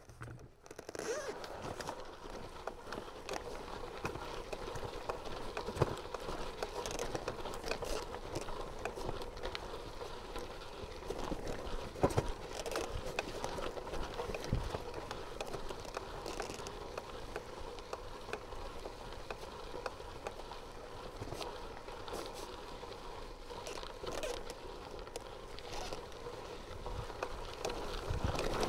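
Bicycle rolling over a loose gravel track: tyres crunching and crackling on stones, the bike rattling, with a few sharper knocks. It starts about a second in.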